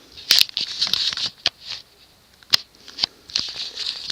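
Handling noise from the ceiling fan's parts being picked up and turned over: irregular rustles with several sharp clicks and knocks.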